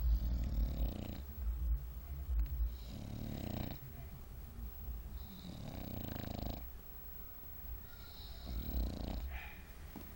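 English bulldog snoring in its sleep, a drawn-out snore on each breath, four breaths two to three seconds apart.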